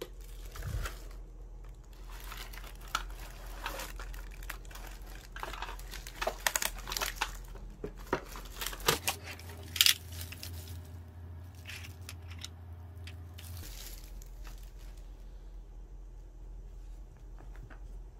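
Clear plastic film wrap crinkling and tearing as it is peeled off a plastic cat food puzzle, in a string of sharp crackles that are loudest in the first half and thin out to a few after about ten seconds.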